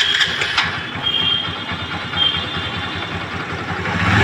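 Honda Dream Yuga's single-cylinder four-stroke motorcycle engine running steadily just after an electric start, freshly rebuilt after seizing: it runs without the crank rattle it had before the rebuild.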